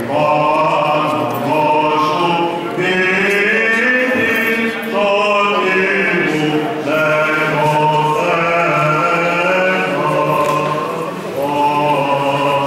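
Greek Orthodox Byzantine chant: several voices singing a slow, drawn-out melody over a steady held low note, the ison drone.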